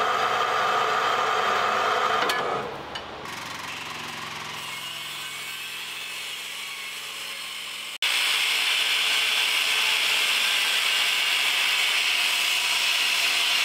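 An electric angle grinder grinding steel tubing: a loud, steady, high grinding hiss that starts abruptly about eight seconds in. Before it, a steadier, lower machine sound from the hydraulic tube bender and its pump fades down after about two seconds to a quieter hum.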